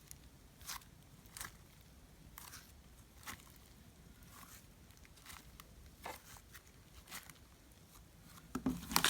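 Glitter slime being squeezed and stretched by hand, making faint sticky clicks and pops about once a second. Near the end it turns into louder, denser crinkly squishing.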